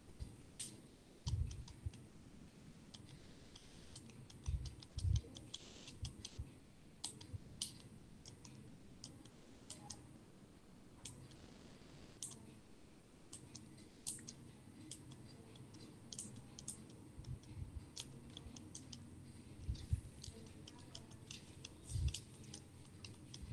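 Faint, irregular clicking throughout, with a few soft low thumps: about a second in, twice around five seconds in, and twice near the end.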